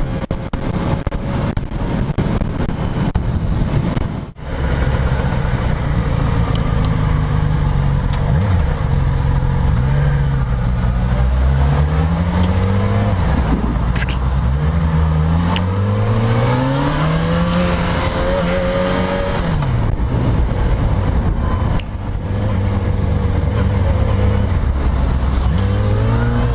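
Motorcycle engine pulling hard through several gears, its pitch climbing and dropping back at each upshift, over steady wind rush. It then eases off and settles to a lower, steadier pitch.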